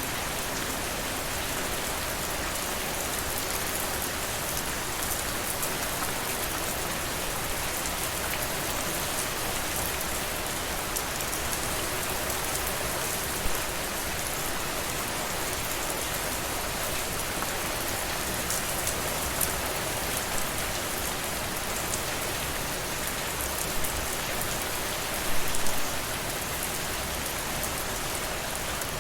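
Steady rain falling on a surface, a dense even patter of drops, with a few louder close drops standing out, a small cluster of them near the end.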